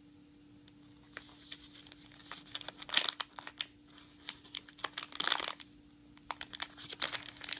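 Crinkling and clicking handling sounds in several irregular bursts, loudest about three seconds in and again around five seconds, over a faint steady hum.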